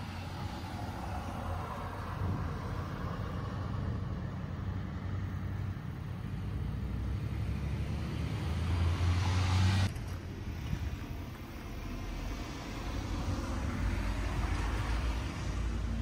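Vehicle noise: a steady low rumble with the swelling whoosh of a passing vehicle, which cuts off abruptly about ten seconds in, then a second swell near the end.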